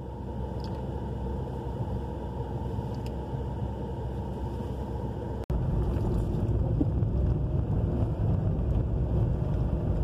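Car driving on an unpaved road, heard from inside the cabin: a steady rumble of engine and tyres. About halfway through there is a momentary dropout, after which the low rumble is louder.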